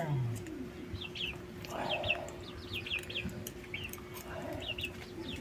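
Small birds chirping in short, quick falling notes again and again, with a chicken clucking about two seconds in, over a steady low hum.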